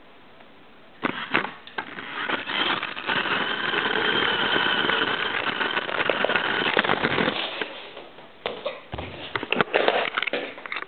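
Lego 8183 RC car's small electric motor and plastic drivetrain whining steadily for about four seconds, with clattering and knocks of the plastic car before and after.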